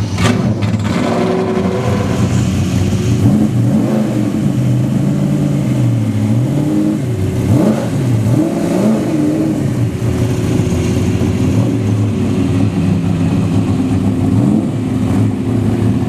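Engines of vintage race cars running and being revved as the cars drive slowly past one after another; the engine pitch rises and falls repeatedly with the throttle.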